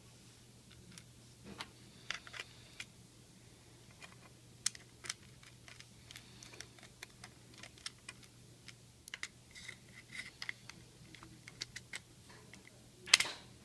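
Irregular light clicks and taps of small plastic parts of a baby monitor being handled, with a louder quick run of clicks near the end.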